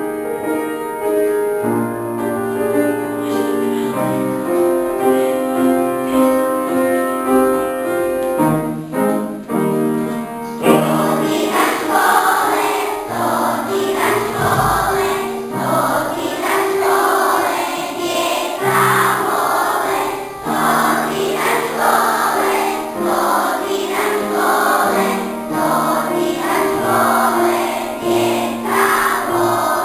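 An upright piano plays an introduction, and about ten seconds in a class of young children starts singing a school anthem in unison to the piano accompaniment.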